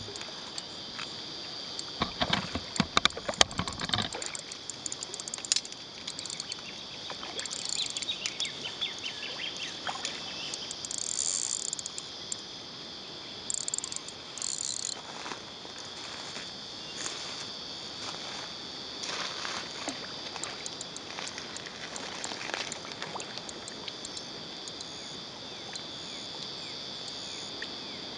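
A steady high insect chorus runs under irregular splashing from a hooked carp thrashing at the water's surface. The splashes are heaviest and loudest about two to four seconds in, then come in scattered bursts.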